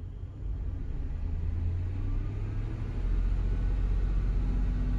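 The 5.4L Triton V8 of a 2002 Ford E-150 van revved in park from idle to about 1,500 rpm, heard from inside the cab as a low rumble. The rumble rises in steps, about half a second in and again about three seconds in.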